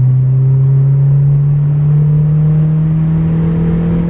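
Mazda MX5's 1.8-litre four-cylinder engine pulling through a gear with a newly fitted cold-air induction kit, its note climbing slowly and steadily.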